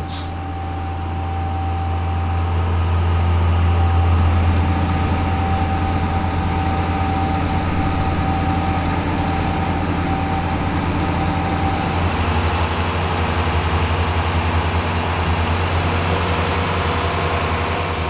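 John Deere 55-series tractors' six-cylinder diesel engines running steadily under load while pulling ploughs. The drone swells over the first few seconds, and the engine note shifts about twelve seconds in.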